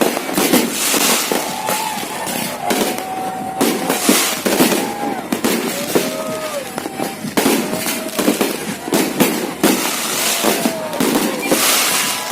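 Fireworks going off in a rapid barrage of bangs and crackles, with short pitched tones rising and falling over them.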